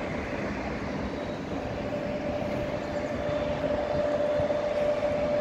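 Diesel locomotive of the Czechoslovak T 478.1 family (the 'Hummel') running, its engine giving the humming whine the nickname comes from: a steady tone over a low rumble that grows louder from about two seconds in.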